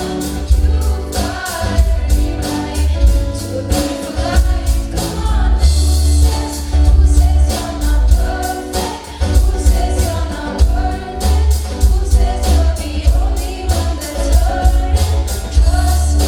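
A song with singing over heavy bass and a steady beat.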